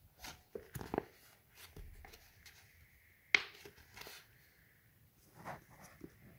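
Scored polypropylene sheet rustling and crackling as it is creased by hand along its score lines, with several soft clicks and one sharp click about halfway through.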